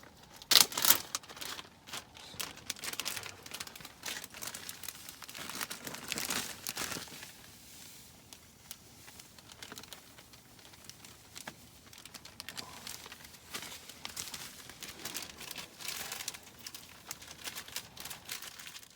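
Irregular rustling and crinkling with scattered sharp clicks, as of camping gear being handled at close range, loudest about a second in and thinning out after the first several seconds.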